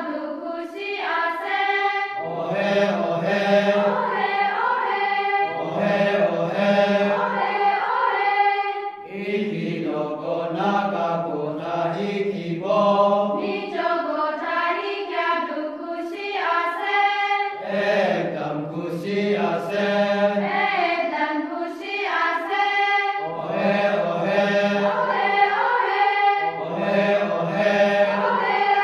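A group of voices singing a song together in chant-like phrases a few seconds long, with short breaks between them.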